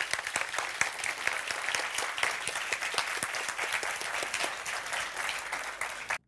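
Audience applauding: dense, steady clapping from a roomful of people, which cuts off suddenly just before the end.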